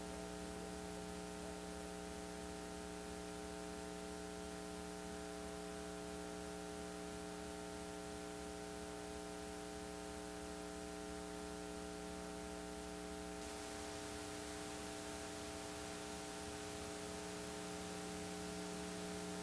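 Steady electrical hum made of several steady tones over a faint hiss, the blank soundtrack of a videotape between two programmes. The hiss turns a little brighter about two-thirds of the way through.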